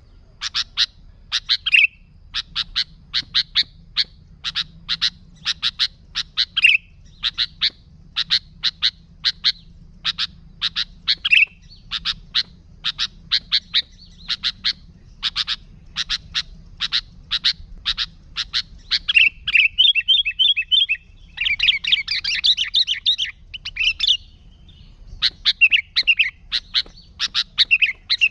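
Sooty-headed bulbul (kutilang) calling nonstop: quick groups of sharp, clipped notes repeated over and over. About two-thirds of the way through there is a fast trill, then a dense chattering run.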